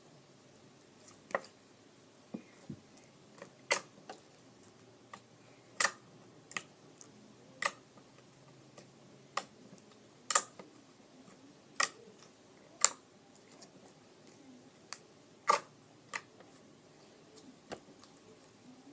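Homemade slime being worked by hand, giving off a string of sharp, irregular pops and clicks, about one a second.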